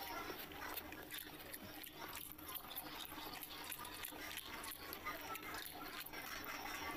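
Close-up wet eating sounds: fingers squelching and mixing water-soaked rice (panta bhat) with fish by hand, with chewing and lip-smacking. These come as a dense run of short, wet clicks and smacks.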